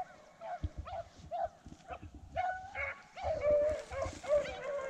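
Rabbit hounds baying: a run of short yelps, then a long drawn-out bawl that slowly falls in pitch through the second half. It is the voice of hounds giving tongue on a rabbit's scent.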